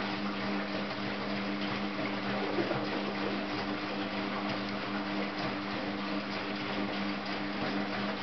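Bendix 7133 Autowasher front-loading washing machine tumbling its drum during a rinse: a steady motor hum with water and wet laundry sloshing in the drum.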